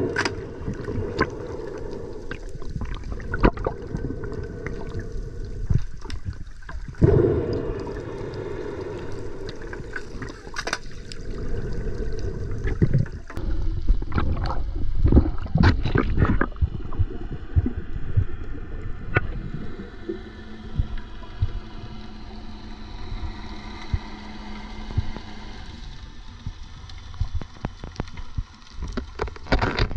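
Underwater water noise while freediving: muffled gurgling and bubbling with scattered sharp clicks and knocks, and a low steady hum for a few seconds past the middle.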